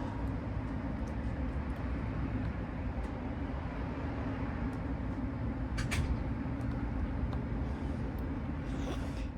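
Steady low outdoor rumble with a few light clicks and a sharper tap about six seconds in. No multimeter continuity beep sounds: this coax cable is not the one shorted with tin foil at the far end.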